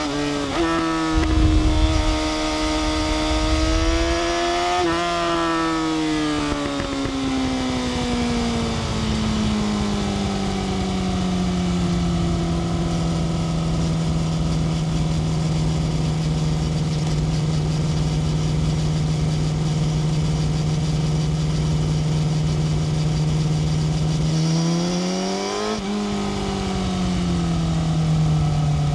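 Yamaha R6 inline-four engine heard onboard while riding. Its pitch drops sharply just after the start, as in an upshift, then falls slowly for several seconds. It holds steady revs for about twelve seconds, then rises and falls again near the end.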